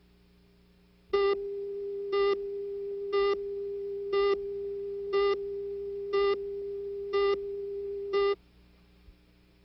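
Electronic tone: a steady, mid-pitched pure tone with a louder, buzzier beep on top of it once a second, eight beeps in all, cutting off suddenly.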